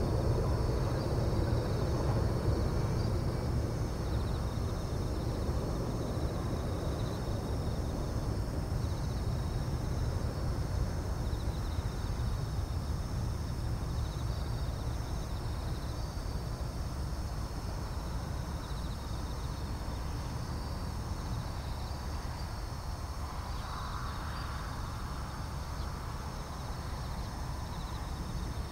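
Distant Boeing 747-400's four turbofan engines (Pratt & Whitney PW4056) at approach power, a low rumble slowly fading as the jet flies away. A steady high chirring of insects runs throughout.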